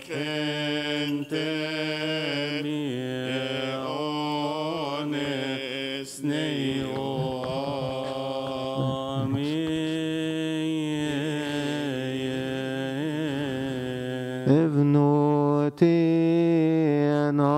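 A man's voice chanting a slow, melismatic Coptic Orthodox liturgical hymn unaccompanied, with long held notes that waver and turn on each syllable. The chant grows louder about fourteen and a half seconds in.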